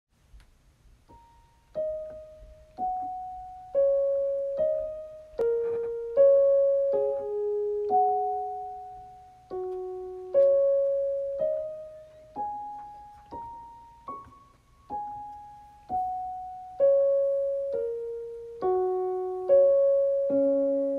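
Background music: a slow solo piano melody of single notes struck about once a second, each left to ring and fade.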